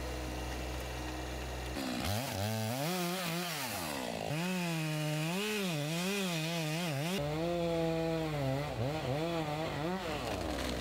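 Two-stroke chainsaw idling, then revved up about two seconds in and cutting into a red oak trunk, its pitch dipping and rising as the chain bites and frees. It eases back toward idle near the end.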